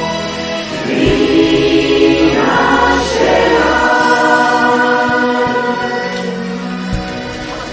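Choir singing an Italian song, the voices holding long chords that change every second or two.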